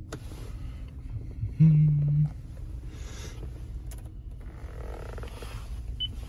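A loud low hum, lasting under a second, cuts in and out sharply about one and a half seconds in. Near the end comes a short high beep from the Lexus LX470's navigation touchscreen as a button is pressed.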